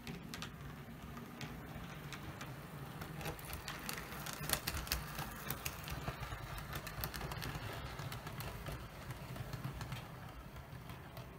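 OO gauge model train running along the layout's track: a steady motor hum with rapid clicking of the wheels over the rails, growing louder to about halfway as it passes and then fading.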